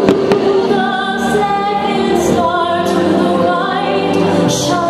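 Fireworks show soundtrack: music with a choir and female voices singing long held notes. Two sharp bangs sound near the start, from the fireworks bursting overhead.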